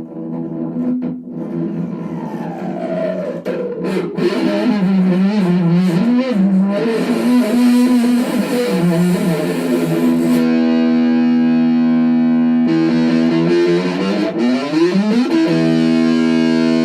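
Music: distorted electric guitar with effects, sliding notes at first, then settling about ten seconds in onto a held, steady chord, with a rising glide near the end.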